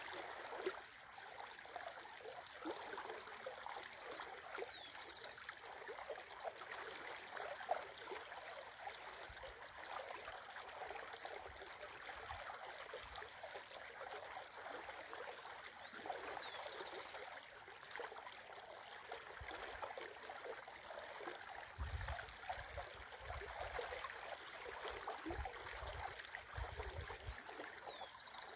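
Shallow river babbling and gurgling steadily over a rocky riffle. A bird calls three times, about every eleven seconds: a short rising-and-falling whistle followed by a brief buzzy note.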